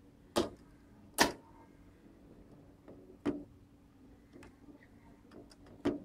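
Float switch arm flipped by hand between its off and on positions, clicking sharply four times at uneven intervals.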